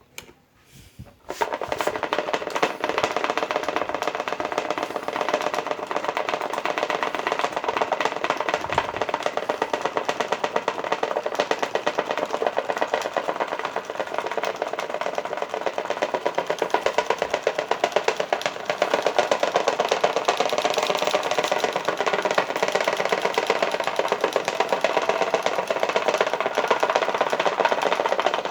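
A battered Ultra electric fan, over 22 years old, starting up about a second and a half in and then running with a steady, fast rattle. The rattle gets a little louder about two-thirds of the way in.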